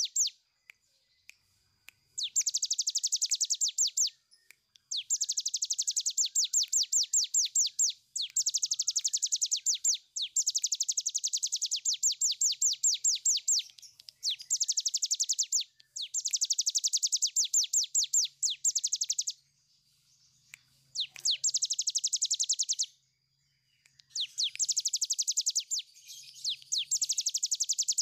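A caged ciblek gunung (cigun, a prinia) sings its long rattling 'ngebren' song. It repeats shrill notes at roughly ten a second in runs of two to four seconds, with short pauses between runs.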